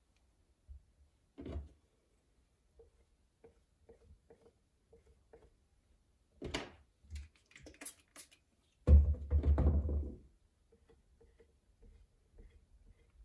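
Handling noises from hand-building work with clay and tools: scattered light taps and knocks, a few sharp clicks, and one louder thump with a brief rustle about nine seconds in.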